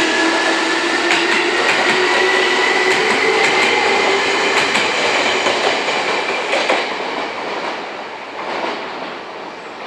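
Seibu 2000 series electric commuter train pulling away from the platform. Its motor whine rises slowly in pitch as it accelerates, and its wheels click over the rail joints. The sound fades after about seven seconds as the last car passes.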